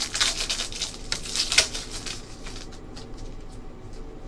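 Trading card pack being opened by hand: the foil wrapper crinkles and the cards rustle as they are handled, a crackly run of small clicks that is busiest in the first two seconds, with one sharper click about a second and a half in.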